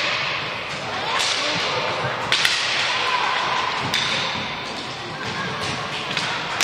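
Youth roller hockey play on a wooden gym floor: a steady rush of skate wheels and scuffling, with several sharp cracks of sticks hitting the puck, two of them close together about two and a half seconds in, and scattered shouts from players.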